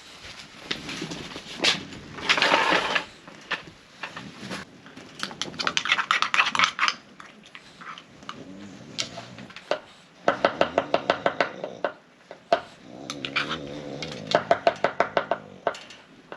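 Cooking utensils and dishes being handled: scraping and rustling, with two quick runs of sharp clicks partway through and near the end.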